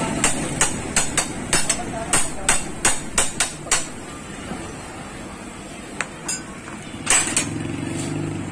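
Hammer blows at the steering head of a Honda TMX125 Alpha motorcycle while its steering-stem bearings are being replaced. There are sharp metal strikes at about three a second for the first four seconds, then a pause, then a few single strikes near the end.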